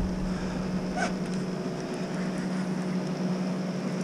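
Steady low hum of an idling boat motor, with a short click about a second in.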